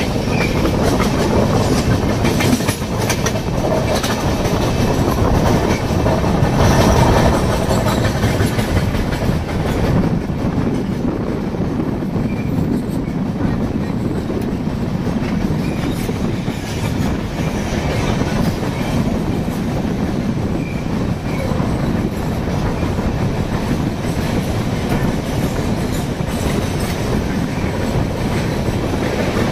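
Express passenger train running: a steady rumble of wheels on the track, with scattered clicks throughout.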